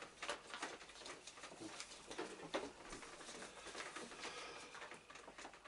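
Faint rustling and shuffling of paper sheet music being handled and turned on music stands, with scattered light taps and clicks.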